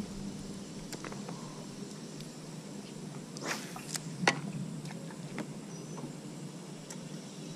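Quiet handling noise as a soft plastic fishing worm and line are rigged by hand in a small boat: a few small clicks and a brief rustle over a faint low hum, with one sharper click a little past the middle.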